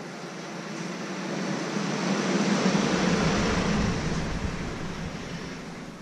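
A vehicle passing by: a broad rushing noise with a low hum that swells to a peak about three seconds in and then fades away.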